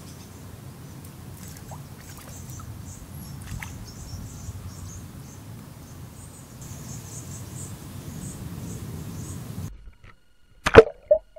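Pond-side outdoor ambience: a steady low rumble with insects chirping in short, repeated high calls. Near the end the ambience cuts off, and two sharp, loud knocks follow close together.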